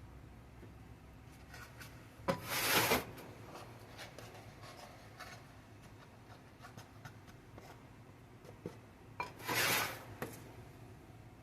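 Two brief rasping scrapes, about seven seconds apart, with faint clicks and knocks between them.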